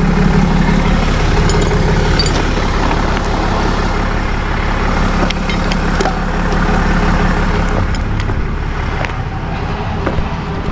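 Vehicle engine idling steadily, with a few light clicks and knocks over it.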